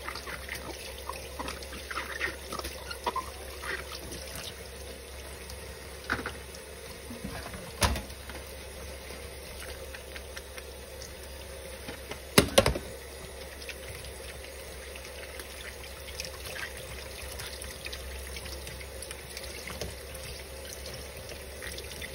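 Kitchen faucet running steadily into a stainless sink while dishes are washed by hand under the stream. A few sharp knocks of dishware sound through it, the loudest clatter about twelve seconds in.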